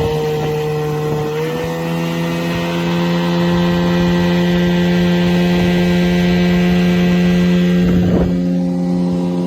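1970 Chrysler 10 hp two-stroke outboard motor running steadily. Its pitch steps up slightly about one and a half seconds in and it runs a little louder after, with a brief rush of noise near the end.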